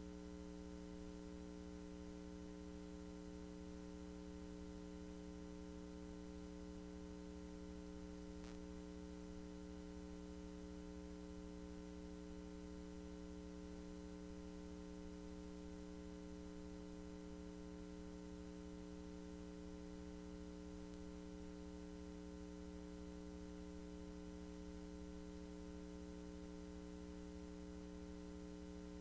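Steady electrical hum: a low buzz made of several fixed tones over faint hiss, with one faint tick about eight and a half seconds in.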